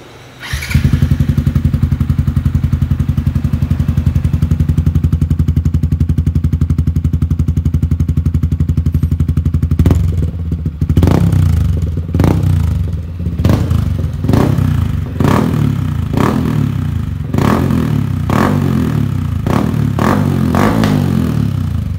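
Yamaha Exciter 155's single-cylinder engine starting up through an aftermarket stainless 304 header and PR2 slip-on muffler and idling steadily. From about ten seconds in it is revved in a string of short throttle blips, roughly one a second.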